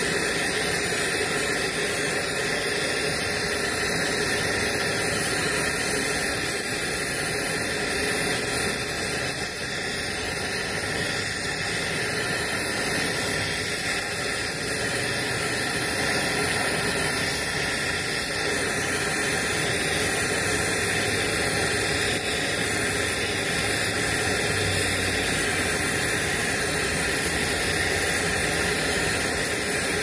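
Oxy-acetylene brazing torch flame hissing steadily as it heats a copper capillary tube to melt brazing rod into a leak.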